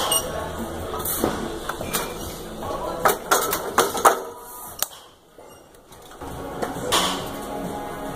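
Metal clinks and clanks from a loaded barbell and its iron plates in a squat rack during band-resisted speed squats, with a quick run of sharp knocks about three to four seconds in and another clank near seven seconds. Low background gym noise with distant voices runs underneath.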